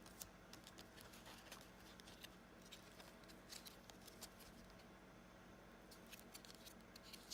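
Near silence with faint, scattered clicks and soft rustles of silver coins and their packaging being handled, over a low steady room hum.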